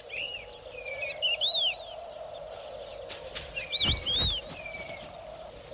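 Common kestrel chicks calling from the nest: groups of short, high, arched chirps, loudest about four seconds in, over a faint steady hum.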